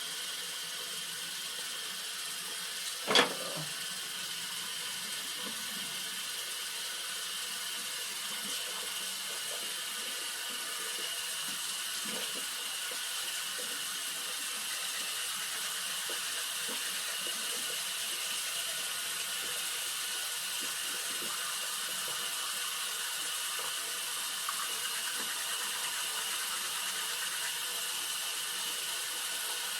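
Water running steadily from a bathroom tap into a sink, with one sharp knock about three seconds in.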